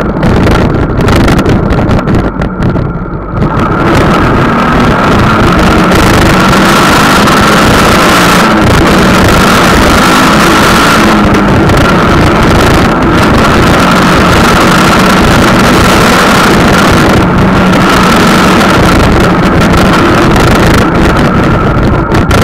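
Wind buffeting the microphone of a camera on a moving vehicle, over a steady engine drone with a thin high whine. The wind noise drops briefly about two seconds in, then returns.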